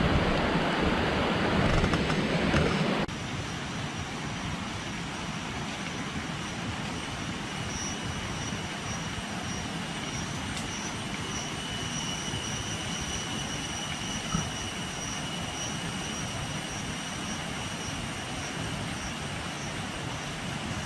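Loud rushing noise, like wind on the microphone, for the first three seconds, then cutting off abruptly into a steadier, quieter hiss with faint high thin tones running through it.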